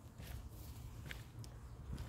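Footsteps on a dry dirt forest trail, with a few faint light crunches, over a steady low rumble.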